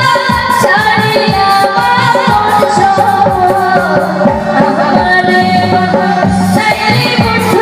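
A woman singing a Bengali song live into a microphone over band accompaniment, with percussion keeping a steady beat whose deep strokes bend in pitch.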